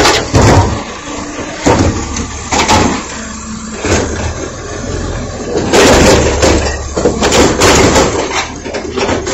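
Automated side-loading garbage truck lifting a recycling bin with its hydraulic arm while its engine runs, with clanks as the arm grips and raises the bin. About six seconds in, the bin's contents crash and clatter into the hopper for a couple of seconds as it is tipped.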